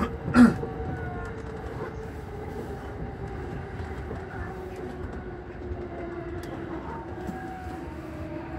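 Keihin-Tohoku line E233 series electric train braking into a station, heard from inside the front car: steady running noise under a motor tone that falls slowly in pitch as the train slows. A sharp clank comes just after the start.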